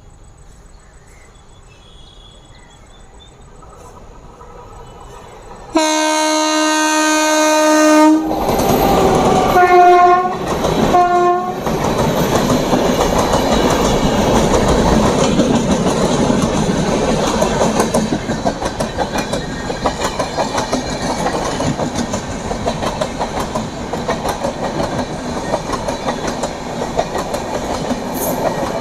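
An approaching train's faint rumble builds, then about six seconds in the WAP-7 electric locomotive sounds its horn in one long blast followed by two short ones. The express then passes close by, its wheels clattering over the track joints in a steady dense rumble.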